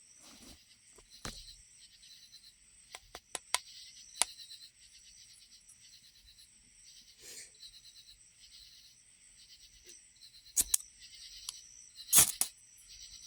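Ferrocerium firestarter rod struck with its striker to throw sparks: short, sharp scrapes, one about a second in, a quick run of four around three to four seconds, then louder strikes near the end, the loudest a slightly longer scrape. A steady high hiss runs underneath.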